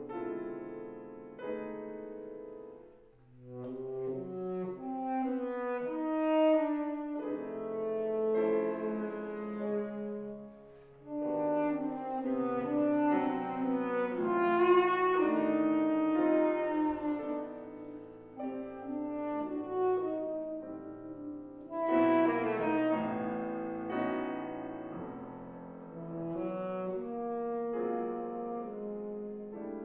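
Tenor saxophone playing a melodic line with piano accompaniment. The music drops away briefly about three seconds in and again about eleven seconds in.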